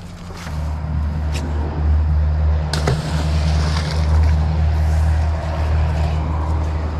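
A motor vehicle's engine running steadily with a low hum that sets in about half a second in, with one sharp knock about three seconds in.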